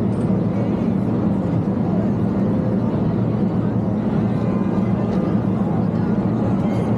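Steady busy-street ambience: traffic running in a constant low hum, with faint mixed voices of passers-by.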